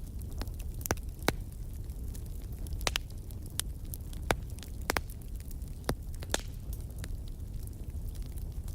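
Wood fire burning in a fireplace: irregular sharp crackles and pops over a steady low rumble of the flames, with a few louder pops.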